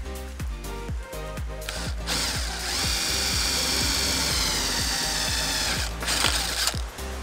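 Power drill boring a twist bit through a white-faced wooden board, starting about two seconds in and running steadily, then stopping near six seconds with a short second burst. Background music with a steady beat plays throughout.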